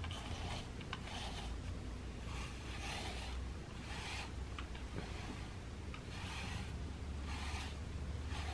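Slicker brush raking through a tabby cat's fur in repeated strokes, a soft scratchy rasp about once a second, over a low steady hum.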